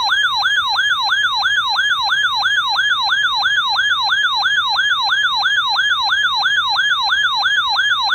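Electronic alert siren: a loud tone sweeping downward in pitch and snapping back up, repeating steadily about three times a second.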